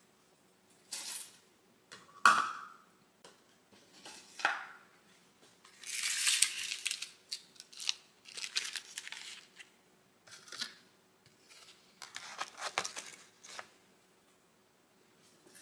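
Plastic food trays and a plastic lid being handled and set down on a black plastic tray, giving scattered clacks, knocks and scrapes of plastic. The loudest is a knock with a short ring about two seconds in, and there are longer rustling scrapes around six and thirteen seconds in.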